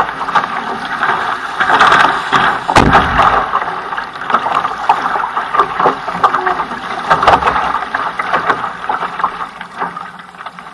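Water rushing and splashing along the hull of an outrigger canoe running downwind through choppy water, in irregular surges. A single sharp knock about three seconds in.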